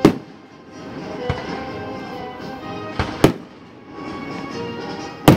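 Aerial firework shells bursting in the sky: a loud bang right at the start, a smaller one about a second in, a quick double bang about three seconds in, and another loud bang near the end. Music plays underneath.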